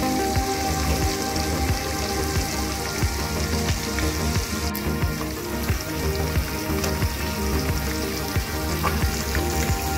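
Marinated Malabar trevally fish shallow-frying in hot oil in a nonstick pan, sizzling with a steady crackle of small pops.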